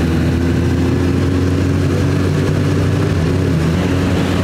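Motorcycle engine running steadily at low, even revs while riding, picked up close by a camera mounted on the bike.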